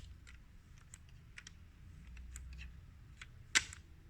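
Scattered light clicks and taps of small plastic parts of a CD player's loading mechanism being handled, with one sharper click about three and a half seconds in.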